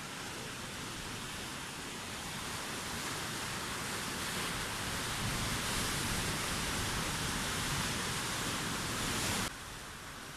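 Sea surf washing ashore: a steady rushing that swells over several seconds, then cuts off abruptly near the end.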